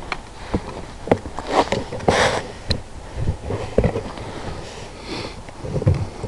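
A person sniffing and breathing close to the microphone in short rushes, the loudest about two seconds in. Scattered clicks and knocks from handling run between them.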